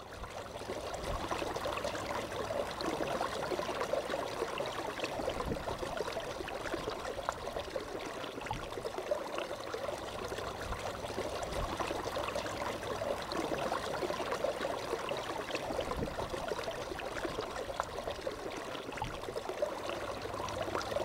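River water flowing steadily, an even, unbroken rush of water.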